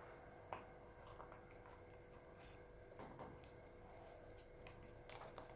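Near silence: a few faint light taps and rustles of paper and cardboard being handled while gluing, over a faint steady hum.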